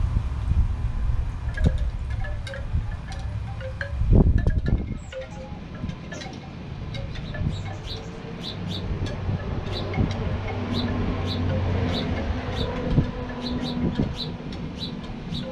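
Wind buffeting the microphone, with a strong gust about four seconds in. Through the second half, a quick, even run of short high-pitched tinks, about three a second.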